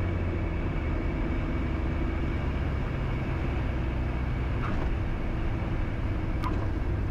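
Beechcraft Bonanza's piston engine and propeller heard from inside the cabin, a steady drone at low power as the airplane rolls along the runway after landing.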